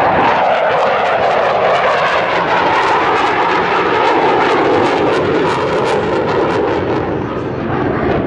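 Loud, steady jet noise of a KAI T-50 Golden Eagle's single F404 turbofan as the jet flies past and pulls up into a climb, easing a little near the end.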